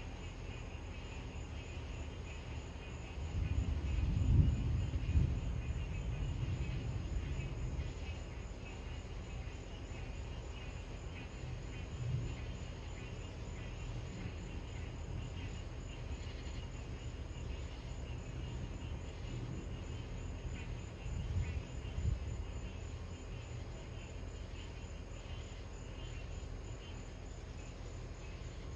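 Deep rumble of distant thunder, loudest a few seconds in, with two smaller rumbles later, over a steady chorus of night insects.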